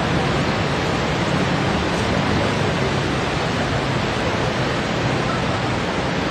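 Fast-flowing floodwater rushing steadily, an even, unbroken water noise.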